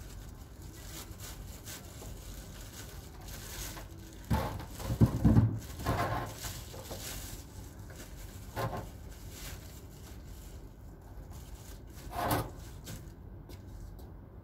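A plastic trash bin being handled while a plastic liner is put in: rubbing and knocking, with a burst of louder bumps a little after four seconds and two single knocks later on.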